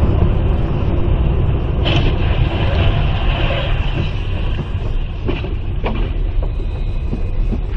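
Road and engine noise of a moving car heard from inside the cabin: a steady low rumble of tyres on a slushy winter road. A few short knocks cut through it in the second half.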